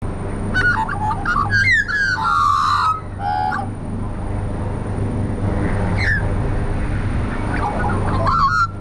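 Australian magpies carolling: a run of warbling, gliding calls in the first few seconds, a short call about six seconds in, and another near the end, over a steady low hum.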